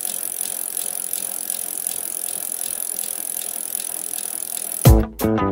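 A steady mechanical whirring with faint, regular ticking and rattling, laid under an animated logo. Near the end it stops and music cuts in with a loud hit and a plucked guitar and bass line.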